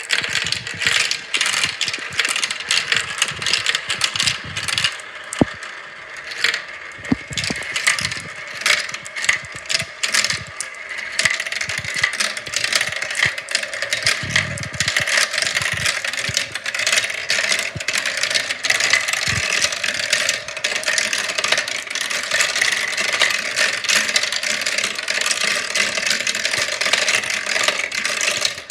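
Marbles rolling and clattering down a marble run, a dense stream of clicks and rattles that thickens into an almost continuous rattle partway through.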